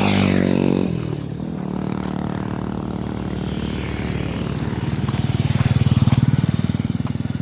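A motor vehicle's engine running steadily while on the move, a little louder about five to six seconds in.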